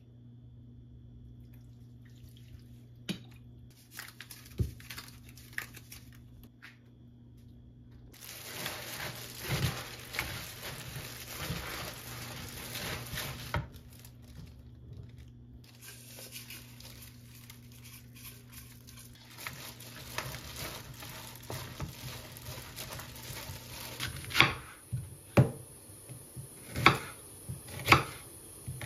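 A few light clicks, then spring cabbage being tossed and squeezed by hand in a bowl with seasoning, with wet squishing and the crinkle of plastic gloves. Near the end a knife chops Korean radish on a wooden cutting board, about one stroke a second.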